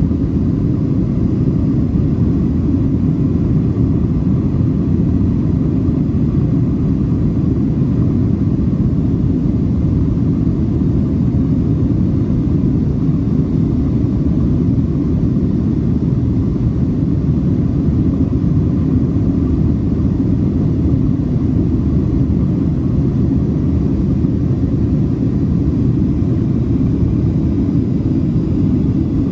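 Steady low rumble of a Boeing 737 cabin in flight: engine and airflow noise, even throughout.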